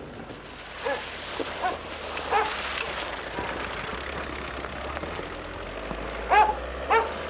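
A dog barking, a few short barks early on and two louder ones near the end, over the steady low rumble of a car driving up through snow.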